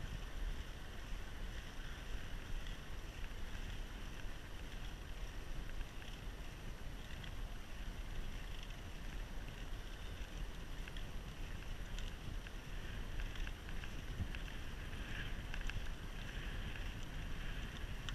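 Wind rushing over the microphone of a camera on a moving bicycle: a steady low rumble with an unsteady hiss above it, and a few faint ticks near the end.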